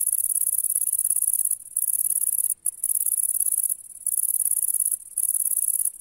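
A bush-cricket stridulating: a continuous, very high-pitched buzzing song in long bursts, broken by brief pauses about once a second.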